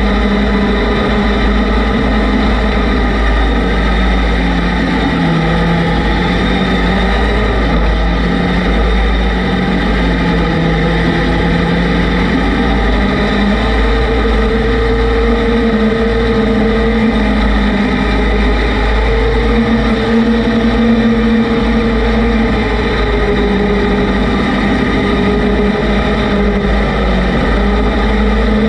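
Off-road vehicle engine running steadily, its pitch slowly rising and falling with throttle, under heavy wind rumble on the microphone.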